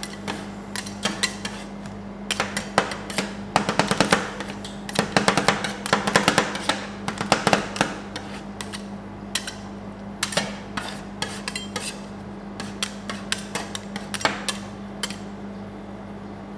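Two metal spatulas chopping and scraping rolled-ice-cream base on a steel cold plate: rapid irregular clacks and scrapes, densest in the middle and thinning toward the end, over a steady low hum.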